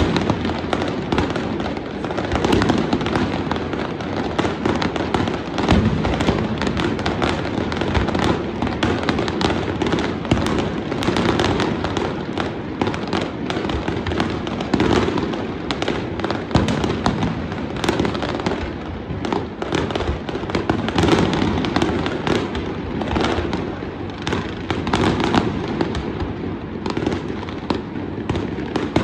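Fireworks display going off continuously: a dense, unbroken run of bangs and crackles over a steady rumble of booms.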